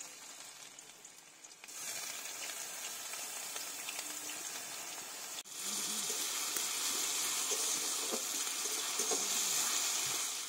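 Grated onion frying in hot oil in a kadai, a steady sizzle that grows louder about two seconds in and again about halfway through.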